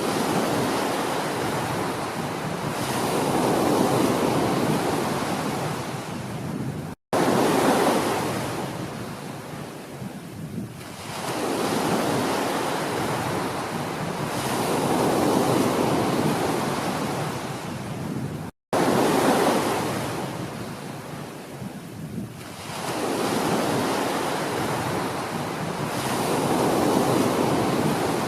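Ocean surf: waves breaking and washing back, a wide rushing noise that swells and fades every few seconds. Twice the sound cuts out for an instant, where the recording is spliced.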